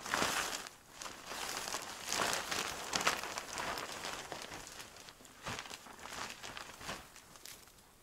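Plastic sheeting crinkling and rustling as it is handled and spread out, with uneven sharper crackles; loudest in the first second.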